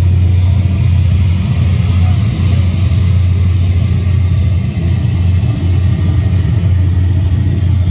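Loud, steady low jet rumble, the airliner sound played over the model airport's loudspeakers as the model Airbus Beluga XL rolls out on the runway. Visitors' voices murmur underneath.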